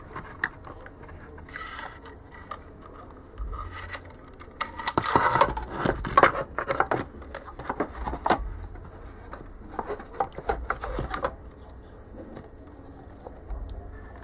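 Laser-cut black plastic box being handled and fitted against the steel casing of an ATX power supply: scraping, rubbing and sharp clicks of plastic on metal. The handling is busiest through the middle and dies down near the end.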